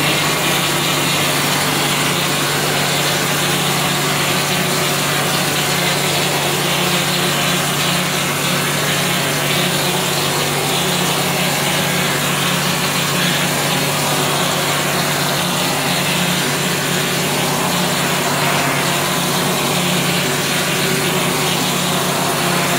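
Plaster mortar spraying machine running steadily: a constant low motor hum under an even hiss as mortar is sprayed from the gun onto the wall.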